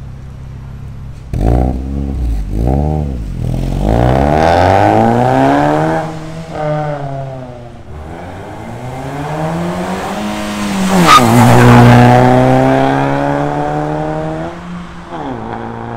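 Proton Persona's four-cylinder engine breathing through a new stainless-steel 4-2-1 extractor and full exhaust. It idles, is blipped twice, then pulls away with the revs rising long in first gear, dips briefly at a gear change and climbs again. It passes loudest about eleven seconds in, then eases off to a steady drone.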